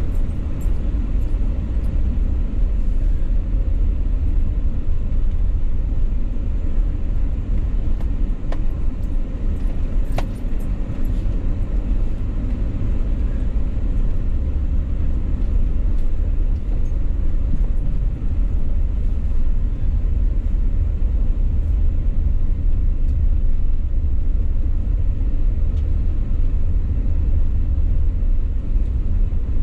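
Car driving along, heard from inside the cabin as a steady low rumble of engine and road noise, with a couple of faint clicks about a third of the way in.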